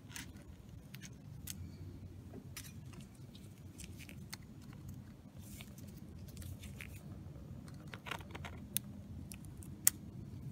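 Light clicks and taps of tweezers and gloved fingers handling small metal parts inside an opened iPad 2, fitting the Wi-Fi antenna cable to its connector on the logic board. There is one sharp click near the end, over a low steady hum.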